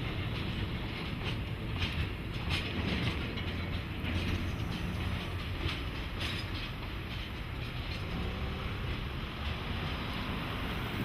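A train with a DE10 diesel-hydraulic locomotive running on the line: a steady low rumble, with scattered clicks of the wheels over rail joints, mostly in the first few seconds.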